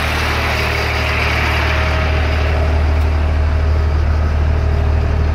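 Caterpillar 3116 turbo diesel of an LMTV truck idling steadily while its central tire inflation system pumps up the tires.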